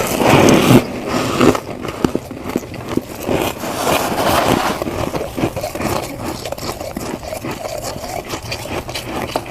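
Crunchy humidifier-made freezer frost being bitten and chewed close to the microphone: loud crunches in the first second and again a few seconds in, then quicker small crackles.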